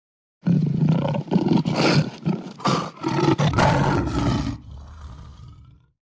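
A loud, rough roar lasting about four seconds, trailing off into a fading tail near the end.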